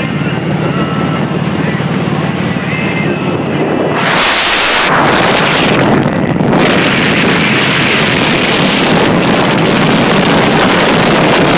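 Kawasaki Vulcan motorcycle cruising at road speed, its engine a steady low hum under the road noise. About four seconds in, loud wind buffeting on the microphone takes over and drowns most of it.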